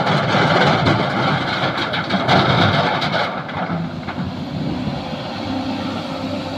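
Sany SY215C hydraulic excavator's diesel engine running under load while it loads fill material, with rattling clatter for the first three seconds or so. After that the clatter stops and the machine runs on more steadily.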